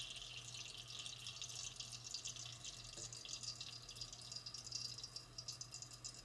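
Toy battery-powered coffee maker dispensing coffee: a faint, steady trickle and drip of liquid running through its filter, with a fine crackle that the owner calls percolating.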